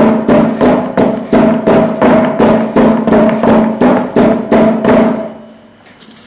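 Stone pestle pounding coriander seeds in a stone mortar: even knocks about three a second, each with a short ringing tone from the stone. The pounding stops about five seconds in.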